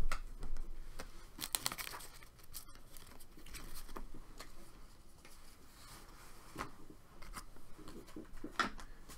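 Paper rustling and crinkling with scattered small clicks and knocks: papers and small objects being handled and moved about on a desk.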